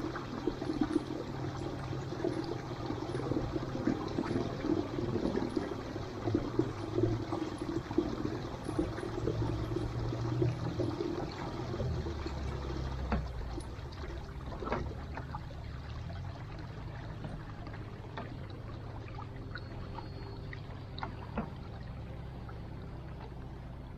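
Water gurgling and trickling along the hulls of a Windrider 17 trimaran as it moves through calm water, fading from about halfway through.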